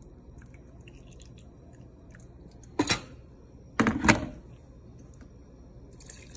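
Two brief handling noises about a second apart, the second slightly longer, over a quiet background.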